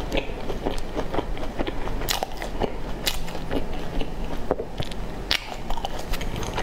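A person chewing a mouthful of food close to a clip-on microphone, with irregular small clicks of the mouth and teeth.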